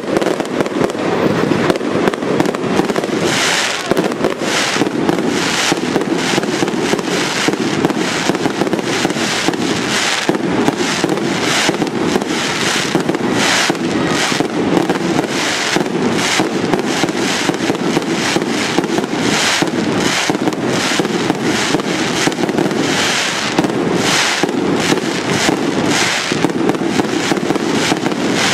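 Fireworks display: aerial shells bursting in a dense, continuous barrage, several sharp bangs and crackles a second without a pause.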